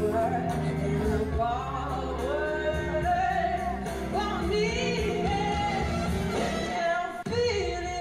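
A woman singing a slow soul ballad live, holding long, bending notes over a band accompaniment, with a short break in the sound near the end.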